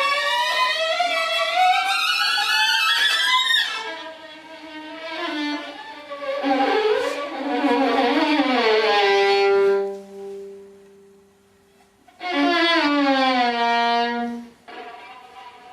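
Sliding, string-like musical tones: a long rising glide that breaks off about four seconds in, then falling glides that settle on a held low note and fade, and after a short lull another falling glide.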